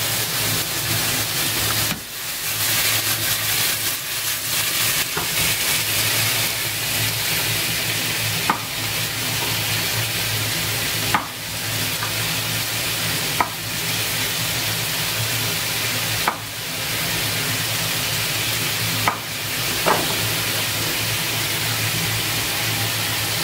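Chicken pieces frying in hot butter in a pan, a steady sizzle, over a steady low hum. About six short sharp knocks a few seconds apart, from a knife on a plastic cutting board as mushrooms are cut.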